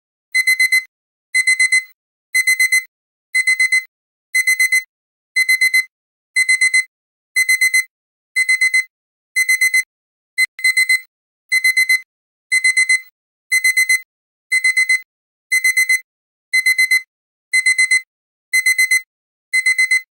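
Digital timer alarm going off, beeping in fast groups of four high beeps, about one group a second. There is a short click about halfway through.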